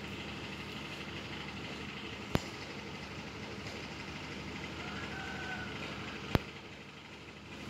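An engine runs steadily with a low hum. Two sharp knocks stand out over it, about four seconds apart.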